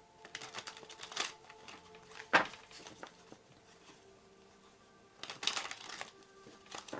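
Tarot cards being handled and shuffled: a quick flurry of papery card flicks, one sharp snap of a card about two and a half seconds in, then another flurry of flicks later on.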